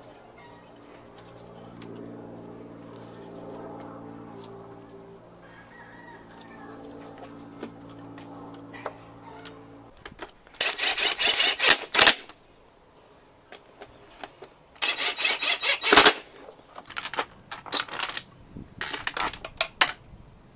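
Cordless impact driver running bolts down, in three loud bursts of rapid hammering: a two-second run about ten seconds in, another about fifteen seconds in, then several short pulses near the end. Before that there is a quieter steady hum with several tones.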